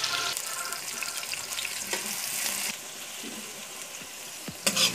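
Sliced onions sizzling in hot oil in a metal pan, the hiss turning quieter about two-thirds of the way in, then a metal spoon scraping and stirring them near the end.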